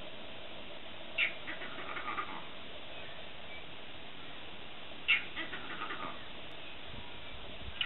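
Animal calls in two bouts, each a sharp, loud note followed by a quick run of shorter, fainter notes, over a steady hiss.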